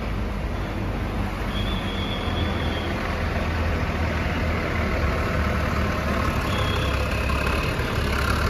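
Heavy diesel bus engine running close by, a steady low rumble that grows a little louder, with a faint high tone heard twice.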